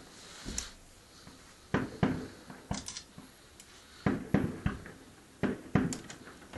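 Fireworks shells bursting: about a dozen sharp bangs at irregular intervals, some in quick pairs, each trailing off in a short echo.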